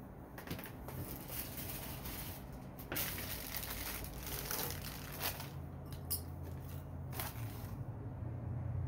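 Crinkling and rustling of wrapping being pulled off a beer glass by hand, with a few louder crackles.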